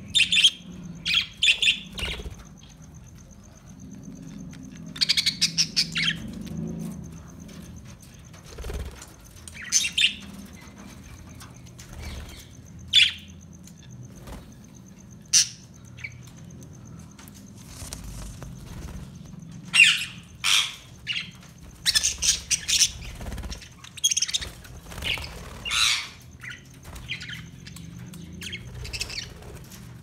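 A flock of budgerigars chirping in short, irregular bursts, with calls packed closest together about two-thirds of the way through.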